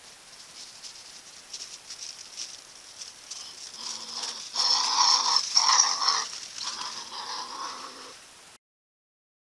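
A fisher hissing and growling in a few harsh bursts, loudest about five to six seconds in. It is a defensive threat at red foxes that are harassing it.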